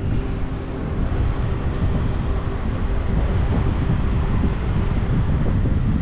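Wind buffeting the microphone: a gusty low rumble that comes on abruptly at the start and holds, over a faint steady hum.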